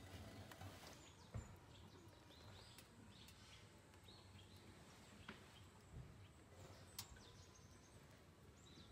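Near silence: quiet outdoor ambience with a few faint, brief high bird chirps and a handful of soft clicks.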